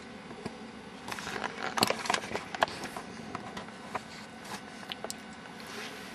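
Handling noise from a handheld camcorder being moved and turned around: a run of sharp clicks and rustling, thickest in the first half, then scattered single clicks, over a steady low room hum.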